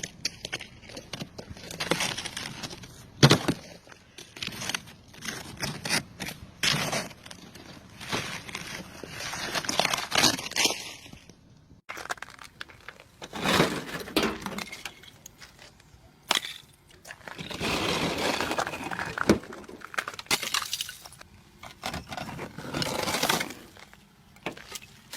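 Ice cracking and breaking as it is cleared off a car: repeated sharp cracks and crunching bursts, irregularly spaced, with an abrupt change in the sound about halfway through.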